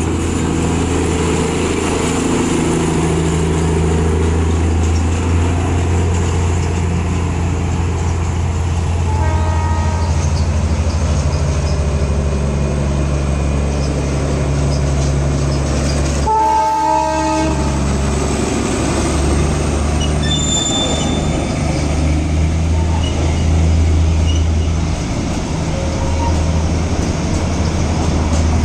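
Diesel locomotive engine running with a steady low drone, and a horn blast of about a second just past halfway through.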